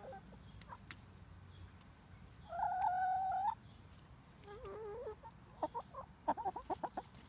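Hens calling: one long, steady call about two and a half seconds in, a warbling call a second later, then a quick run of short clucks near the end.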